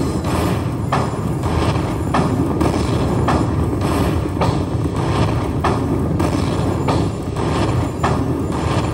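Buffalo Link slot machine's bonus-round sound effects: a low, dense rumble with a sharp hit repeating roughly once a second as coin values are tallied into the win meter.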